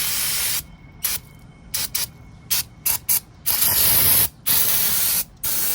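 Aerosol can of brake parts cleaner spraying in a string of short hissing bursts, then in longer sprays over the second half.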